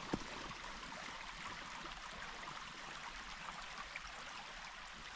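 Small woodland creek running, a steady rush of flowing water, with one soft knock just after the start.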